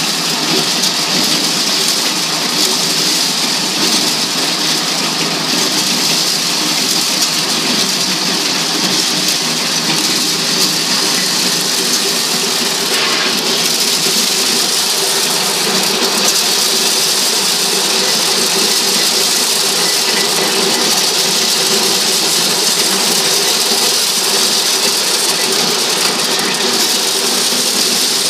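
Motor-driven corn sheller running steadily while shelling maize cobs: a loud, dense rattle of cobs and kernels inside the metal housing, with a steady hum underneath.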